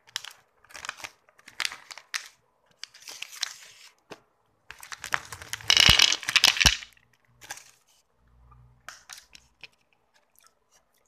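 Plastic chocolate wrappers crinkling and rustling as the packs are handled, in irregular bursts that are loudest about six seconds in.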